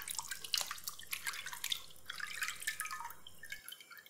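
Water splashing and dripping as raw chicken feet and pork bones are rubbed clean by hand in a bowl of water, thinning to a few drips near the end as they are lifted out.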